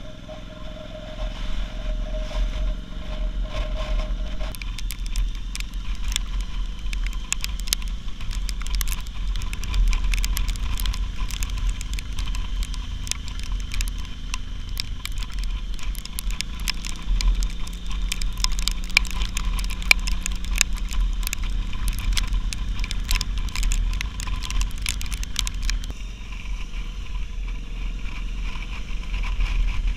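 Motorcycle riding: wind rumble on the camera microphone over the running engine. Dense crackling and clicking runs from about four seconds in until near the end. A steady whine is heard in the first few seconds.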